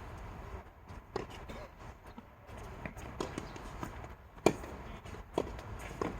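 Tennis rally: a series of sharp racket-on-ball hits and ball bounces, about five knocks, the loudest about four and a half seconds in.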